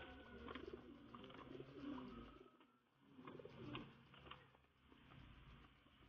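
Racing pigeons cooing softly, low pulsing coos that come and go, with a few faint clicks.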